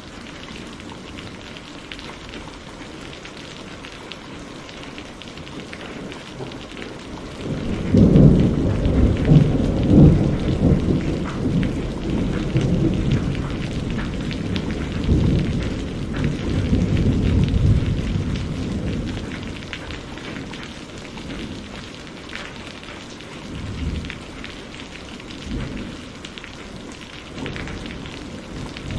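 Steady rain with a long roll of thunder that breaks in about a quarter of the way through, loudest in its first few seconds, then rumbles on and fades over about ten seconds. A few smaller rumbles follow, and another roll begins near the end.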